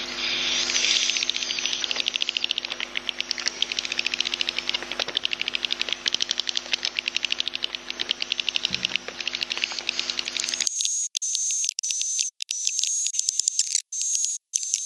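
Recorded swiftlet 'inap' (roosting) calls, the lure sound played in swiftlet houses: a dense, rapid, high twittering chatter. About ten seconds in, the sound changes abruptly to a thinner, higher twitter broken by short gaps.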